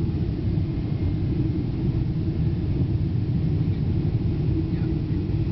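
Steady low rumble of engine and airflow noise heard inside the cabin of a Boeing 777-200 descending on final approach.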